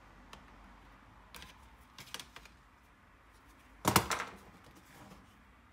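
A few small plastic clicks as the laptop's cooling-fan cable is unplugged and the fan lifted out, then a short, louder clatter about four seconds in as the plastic fan is set down on the table.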